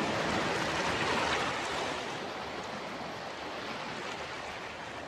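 Sea water washing with an even rushing hiss, a little louder for the first two seconds, then easing.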